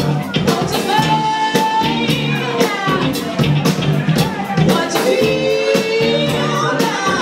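Live party band playing over a steady drum-kit beat, with a woman and a man singing long, bending sung lines.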